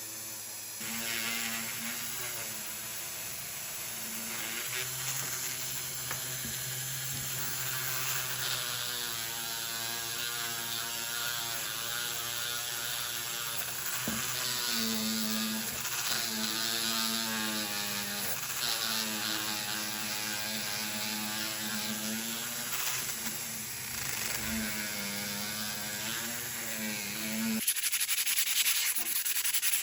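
Small electric rotary tool running against a steel chainsaw guide bar, a steady whine whose pitch wavers as it is pressed on and eased off. Near the end it gives way to quick, even strokes of sandpaper rubbing the bar.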